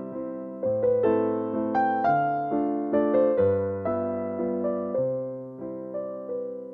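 Background piano music: a gentle melody of struck notes that fade away, over low bass notes changing about every second.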